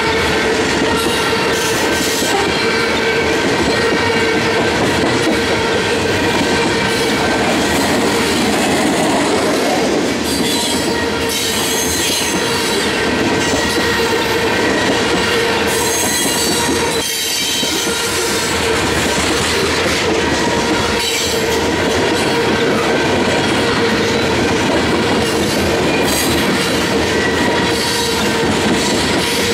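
Freight train of covered hopper cars rolling past at close range: steady rumble of steel wheels on rail with clickety-clack over the rail joints. High wheel squeal comes and goes over it.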